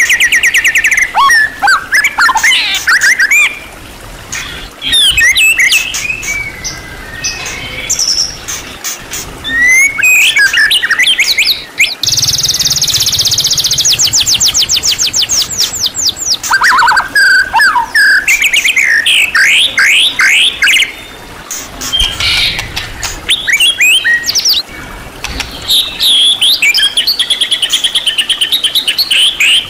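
White-rumped shama (murai batu) singing a long, varied song of whistled phrases, sliding notes and rapid repeated chatters, with a fast rattling trill about twelve seconds in. The song is packed with mimicked calls of other birds.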